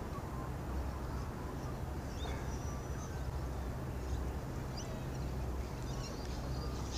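Outdoor ambience by the water: a steady low rumble with a few faint, short bird chirps scattered through it.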